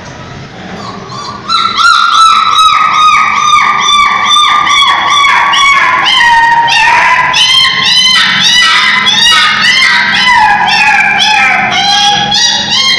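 Puppy crying in a rapid string of high-pitched yelps, about four or five a second, that start about a second and a half in, their pitch slowly sliding down, then longer whining cries of varying pitch.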